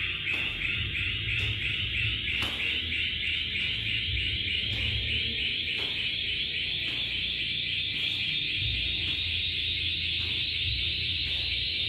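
Steady high-pitched buzzing that pulses rapidly for the first few seconds and then runs continuous. Under it are soft footfalls of someone marching in place on a tiled floor.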